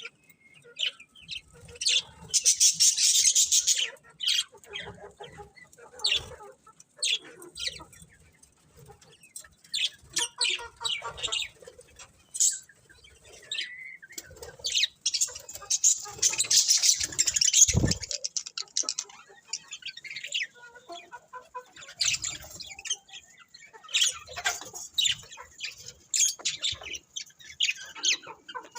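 Budgerigars chirping and chattering: many short, sharp high calls throughout, thickest in two busy bursts, about two to four seconds in and again around fifteen to eighteen seconds in. A single low thump comes near the end of the second burst.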